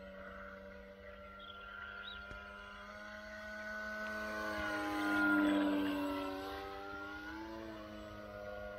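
Electric motor and propeller of a radio-controlled Tiger Moth biplane whining in flight. It grows louder to a close pass about five seconds in, its pitch drops as it goes by, then rises again near the end.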